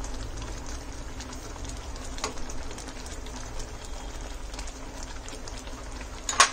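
Thick semolina-and-milk kheer simmering in a steel pan, its bubbles popping in a steady light crackle. A sharp clink near the end.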